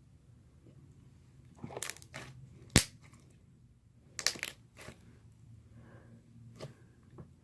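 Slime being handled, giving short crackling, crunching pops in a few clusters. A single sharp crack about three seconds in is the loudest.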